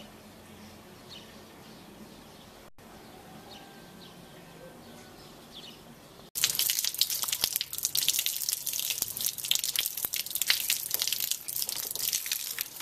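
Quiet outdoor background with a few faint bird chirps. After a sudden cut about six seconds in, water runs from a wall tap and splashes loudly onto a wet concrete floor.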